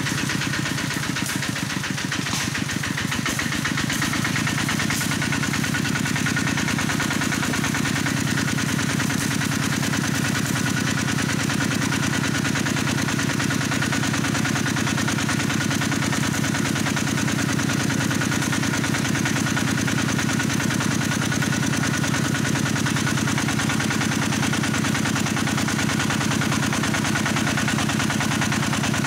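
Single-cylinder diesel engine of a công nông farm truck running steadily at a fast, even thump. A few clicks in the first few seconds.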